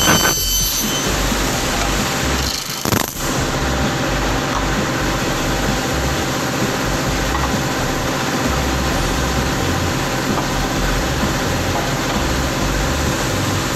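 Aluminum cutting saw's motor and blade running steadily with no cut in progress, a steady hum. There is a brief knock about three seconds in.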